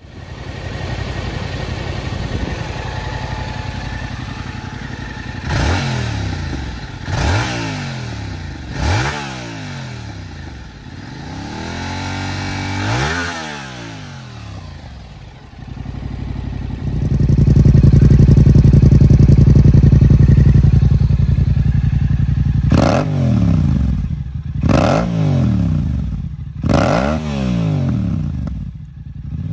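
2022 Yamaha R7's 689 cc parallel-twin engine idling and being revved on the stand: in the first half, through the stock exhaust, four quick throttle revs that rise and fall. About halfway through, now through a Yoshimura R-77 full exhaust system, it is much louder: a high rev held for about four seconds, then idle and four more quick revs.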